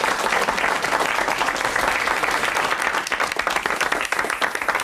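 Studio audience applauding: a dense, steady run of many hands clapping.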